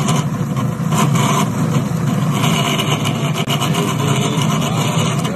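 Food processor motor running steadily with its dough blade, churning pie crust dough as it gathers into a spinning mass after cold water has been added.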